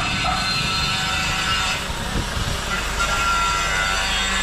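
Street ambience heard while cycling: a steady rush of wind and road noise on the action camera's microphone, with the low rumble of motor traffic around.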